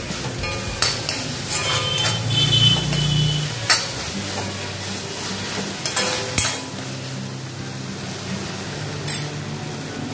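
Steel spoon stirring and scraping a frying mix of onion, grated carrot and tomato in a cast-iron kadai, with a steady sizzle and several sharp clinks of the spoon against the pan.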